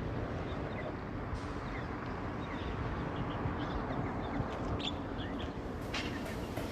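Outdoor ambience: a steady low rumble with scattered short, high chirps, like birds calling, and a few sharp clicks near the end.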